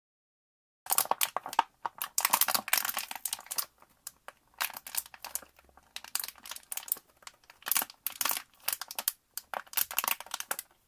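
Plastic PET bottle being crushed, crackling and popping in irregular bursts with short pauses, starting about a second in.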